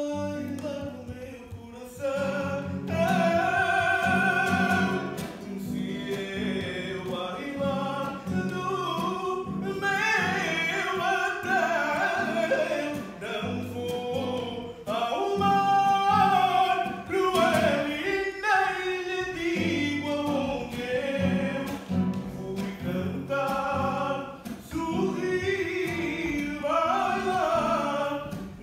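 A man singing live in long held notes, accompanying himself on a strummed small acoustic guitar.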